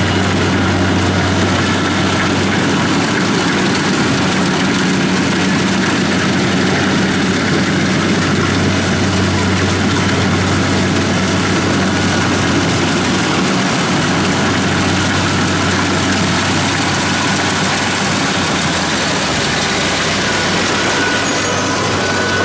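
Kubota DC-70 combine harvester's diesel engine running at a steady, even speed, with a constant loud mechanical drone.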